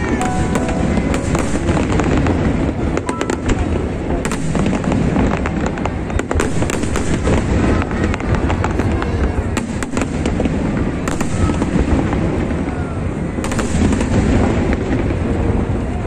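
Aerial fireworks bursting in a dense, continuous barrage of bangs and crackling.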